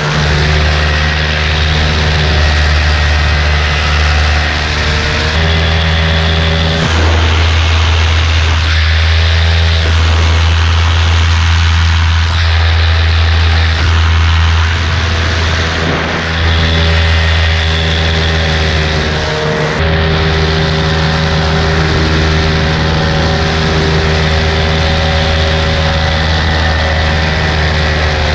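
Paramotor engine and propeller running at cruising power in flight, heard close up from the pilot's harness, with the engine's pitch stepping up and down several times as the throttle changes. Wind rushes over the microphone.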